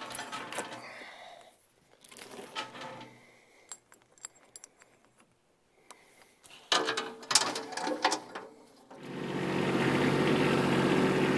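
Metal chain clinking and rattling in short bursts as it is handled, with quiet gaps between. About nine seconds in, the Kubota B2601 tractor's diesel engine comes in and runs steadily at idle.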